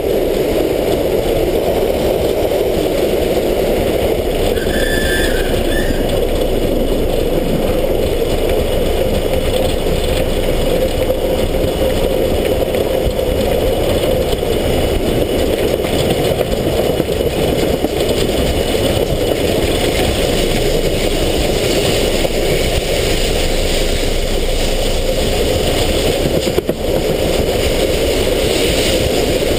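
Steam locomotive S 33-037 running along the line at a steady speed: a continuous rumble and clatter of wheels, rods and motion on the rails.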